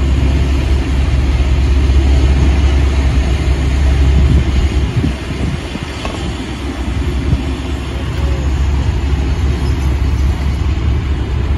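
Road traffic passing close by: a steady low rumble with tyre and engine noise that eases for a moment about halfway through, then builds again.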